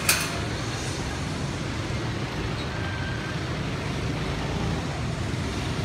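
Steady low rumble and hum of a steel spinning roller coaster running on its track, with one sharp click just after the start.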